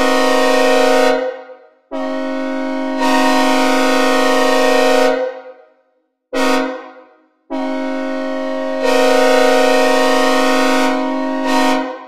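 Synthesized recreation of a Nathan K5HL five-chime locomotive air horn with added reverb, sounding the long-long-short-long grade crossing pattern: the end of one long blast, another long blast, a short blast and a final long blast. Each blast is a steady chord that grows louder partway through the long ones and trails off in an echo.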